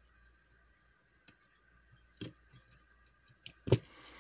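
A few small clicks and taps from hand tools working a component pin out of a perforated circuit board, spaced irregularly, with one much sharper click near the end.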